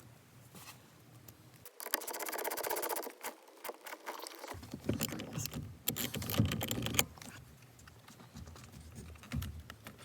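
Hand-tool work: a quick, even run of ratchet clicks, then scattered metallic clinks and knocks as parts are handled.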